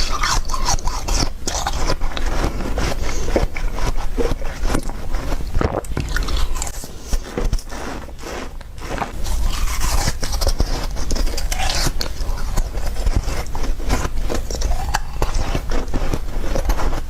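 Slushy ice being bitten and chewed close to the microphone: dense, irregular crunching, softer for a couple of seconds about halfway through.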